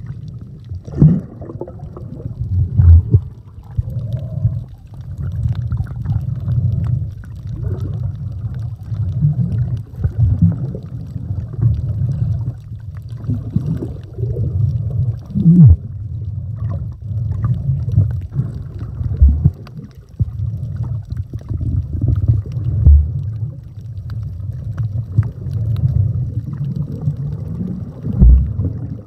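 Muffled underwater sound of sea water picked up by a submerged camera microphone: a low rumbling and gurgling that swells and fades, with a few brief low thumps.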